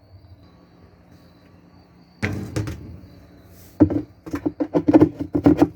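Knocks and rattles of Whirlpool washer parts being handled: a sudden thump about two seconds in, another near four seconds, then a quick run of clattering knocks, about five or six a second, toward the end.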